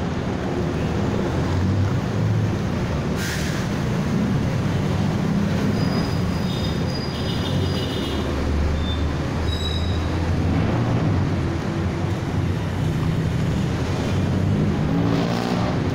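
Steady low rumble of street traffic, with a few faint high-pitched squeals between about six and ten seconds in.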